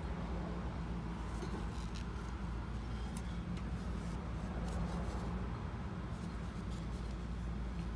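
A steady low hum, with a few faint light clicks and rubs of handling as a gloved hand fits a clear plastic bleed hose onto a brake caliper's bleeder screw.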